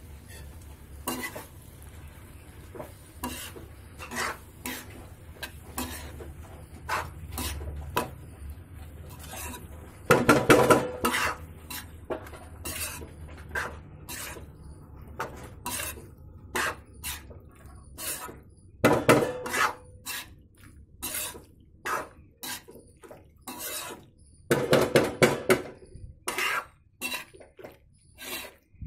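Steel spatula scraping and clinking against a metal wok while stirring macaroni through tomato masala, in quick irregular strokes. Louder bursts of scraping come about ten seconds in, near the middle, and again a few seconds before the end.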